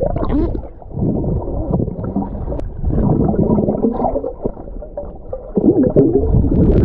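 Gurgling water and bubbles over a low rumble, heard from a camera held underwater.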